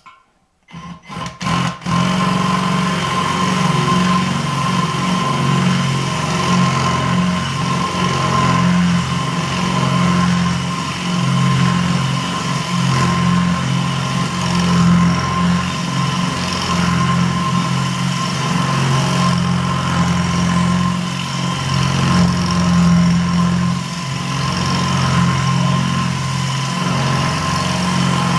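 Power drill running under load, drilling out a seized nut on a toilet cistern's siphon fitting. It stutters on in a few short bursts about a second in, then runs steadily with a wavering hum.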